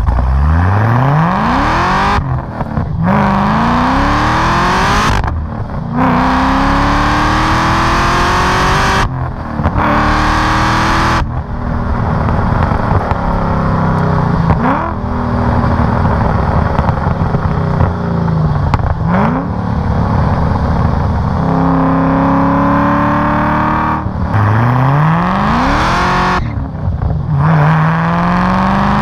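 Cadillac CTS-V's V8 with a loud exhaust accelerating hard through a manual gearbox. The engine note rises in pitch through each gear and drops briefly at every upshift: several quick shifts at the start, a steadier stretch through the middle, then more pulls near the end.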